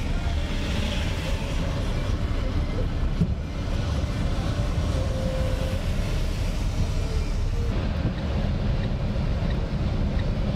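Steady road noise inside a moving car's cabin: engine and tyres on a wet motorway, an even low rumble with hiss.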